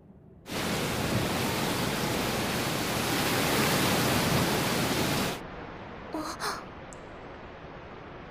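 Heavy typhoon rain pouring down, a loud steady hiss that cuts off suddenly about five seconds in to quieter, muffled rain. A brief clatter and a click follow soon after.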